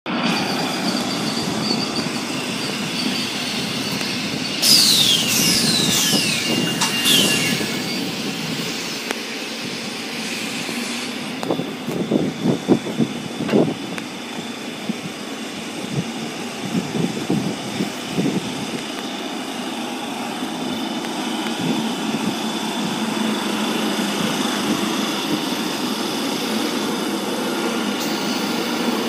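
Renfe electric multiple-unit train moving past a station platform, its running noise steady throughout. About five seconds in come several high squeals from the wheels, each falling in pitch, and around twelve to fourteen seconds in there is a run of knocks as the wheels pass over rail joints.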